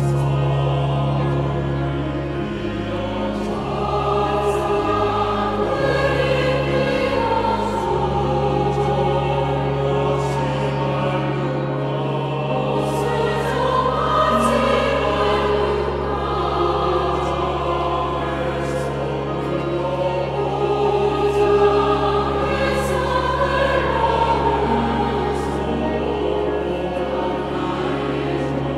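Large mixed church choir singing a hymn-based anthem in Korean, accompanied by organ holding long, steady bass notes and by piano.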